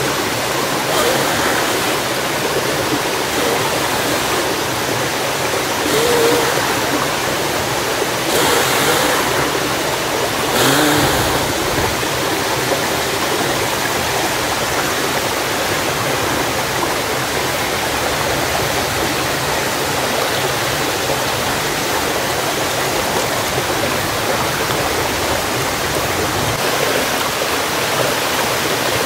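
Steady rush of a nearby stream. Over it, several short scrapes of a fire striker on a ferro rod sound in the first eleven seconds or so as a fibre and feather-stick tinder bundle is lit.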